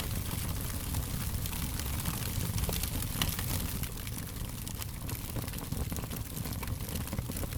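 Fire crackling: a steady low rumble of flames with frequent small, sharp crackles and pops.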